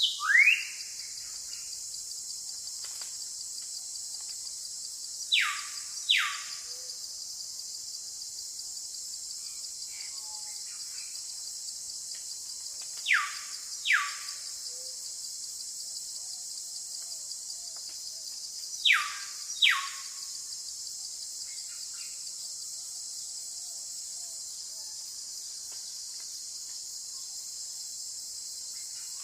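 Jungle ambience: a steady high-pitched chorus of insects, over which a bird gives loud, sharply falling whistles in pairs, each pair about a second apart, three times, with one rising whistle right at the start.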